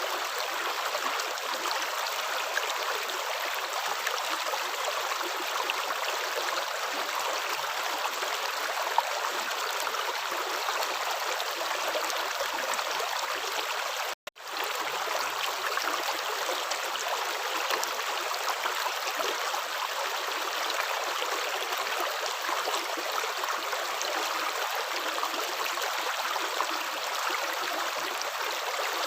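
Running water flowing steadily, a stream-like rush with no distinct steps or splashes. It cuts out suddenly for a split second about fourteen seconds in, then resumes.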